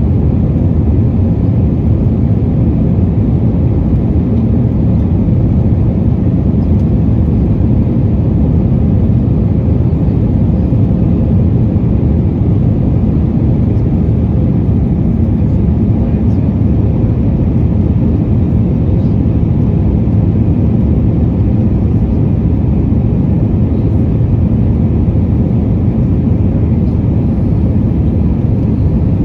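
Airbus A320's IAE V2500 turbofan engines and the rush of air, heard from inside the passenger cabin: a loud, steady, low noise with no change in pitch or level.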